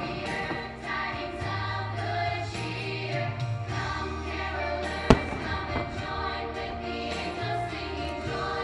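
Choral music playing over sustained low notes, with a single sharp firework bang about five seconds in.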